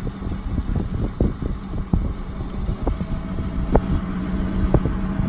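Car driving slowly over pavement, heard from inside the cabin: a low, steady engine and tyre rumble with scattered short ticks and knocks.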